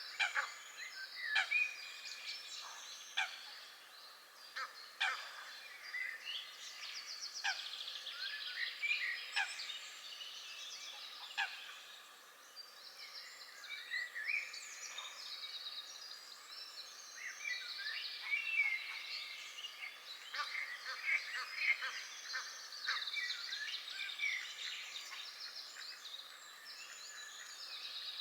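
A chorus of songbirds singing and calling, with many short chirps and trills overlapping, and ducks calling now and then.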